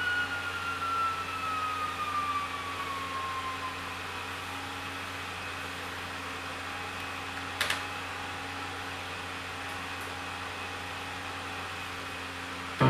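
Yamaha CS-80 synthesizer: a held note glides slowly down in pitch and fades out over the first few seconds, leaving a steady hum and hiss. A single click comes a little past the middle, and a loud new note starts right at the end.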